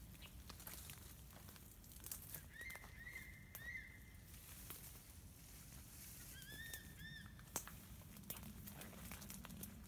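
Faint rustling and crackling of footsteps and brushing through dry undergrowth. Over it, a bird gives two short runs of three clear notes each, a few seconds apart.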